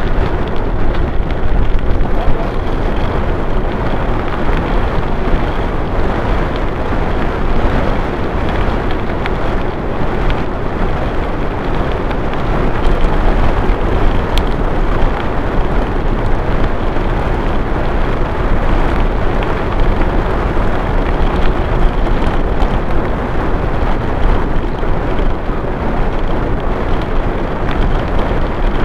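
Wind buffeting the microphone over the rumble of a bicycle's tyres rolling fast down a gravel track: a loud, steady roar.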